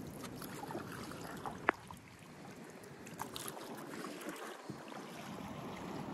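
Canoe being paddled on a calm river: water rippling and trickling around the paddle and hull, with a single sharp knock about a second and a half in.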